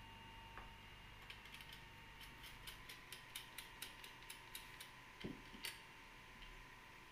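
The plastic joint of a baby tricycle's parent push handle being worked by hand, giving a run of light, quick ratcheting clicks over about four seconds, with a soft knock near the end.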